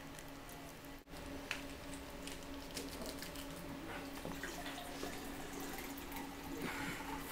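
Juice pouring from a plastic bottle into a drinking glass, a steady trickle over a faint steady hum.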